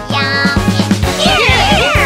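Bright children's cartoon music with a steady beat; from about a second in, quick notes swooping up and down in pitch join in.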